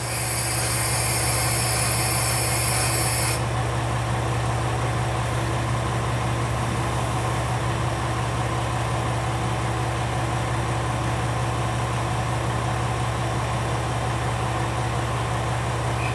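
KiHa 120 diesel railcar's engine idling steadily while the car stands at the platform. A high hiss runs over it for the first three seconds or so and then cuts off suddenly.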